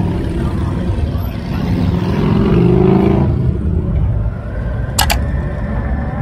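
Motorcycle engines and road noise while riding slowly down a street; the engine sound swells louder for about a second some two seconds in. A short sharp click comes near the end.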